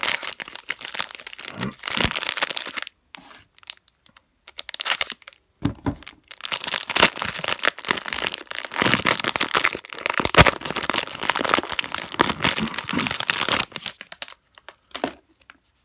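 Plastic wrapper of a trading-card value pack being torn open and crinkled by hand, in bursts of rustling and crackling with short pauses between.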